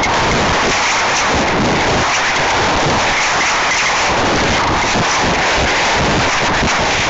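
Loud, steady wind noise of air rushing past a high-power rocket's onboard camera microphone in flight, an even hiss with no tone.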